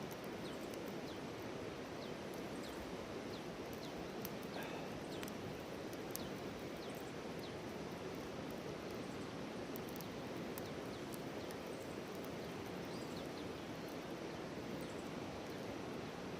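Wood campfire crackling, with scattered sharp pops over a steady low rush, and a few short bird chirps in the background.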